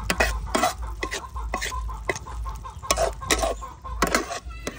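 Chickens clucking in a run of short, irregular calls.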